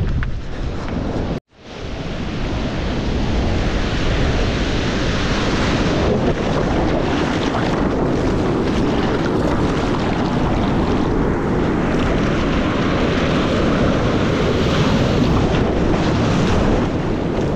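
Ocean surf and rushing water close against a GoPro microphone, with wind noise buffeting it. The noise cuts out abruptly for a moment about a second and a half in, then comes back and holds steady and loud.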